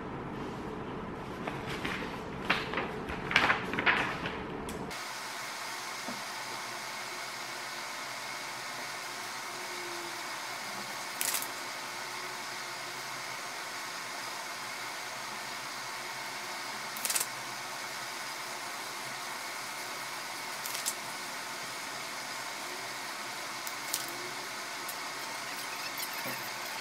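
Pen-and-paper sounds at a desk: a steady low hiss of room noise with a few short rustles and scratches. There is a louder cluster of small knocks and rustles in the first few seconds, and the background noise changes abruptly about five seconds in.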